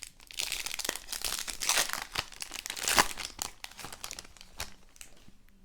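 Plastic wrapper of a Panini Prizm football card pack crinkling as it is torn open, dense for the first few seconds, followed by lighter clicks and rustles as the cards are handled.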